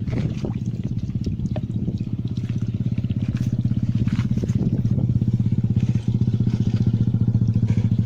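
A small engine running steadily with a fast, even beat, with a few light knocks and clatters over it.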